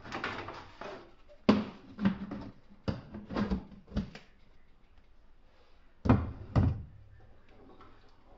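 Kitchen clatter of things handled at the stove: a wooden spoon knocking against a cooking pot and a plastic food container being picked up and set down. There are sharp knocks about every half second through the first four seconds and two more at about six seconds.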